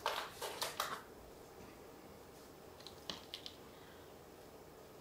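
Light clicks and taps from hands handling small objects: a quick run of four or five in the first second, then a few fainter ticks about three seconds in.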